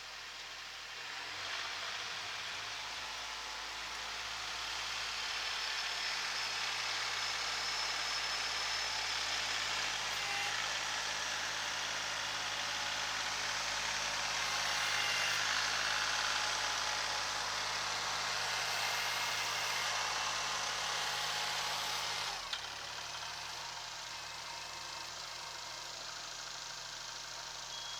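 Kubota SL28H tractor's diesel engine running under load. It picks up near the start, holds steady, then drops back abruptly a few seconds before the end.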